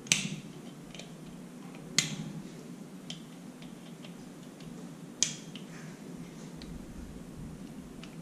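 Three sharp metallic clicks about two and three seconds apart, with a few fainter ticks between them: a tool and small metal parts of a door lock's core being worked while prying off its retaining ring.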